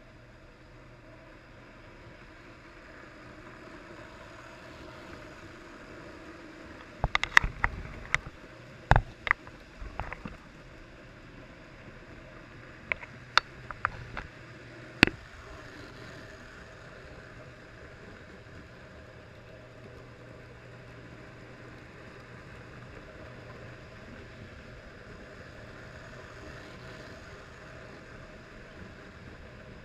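Lionel toy trains running on three-rail track: a steady rumble and hum of motors and wheels, with a run of sharp clicks and knocks between about seven and fifteen seconds in.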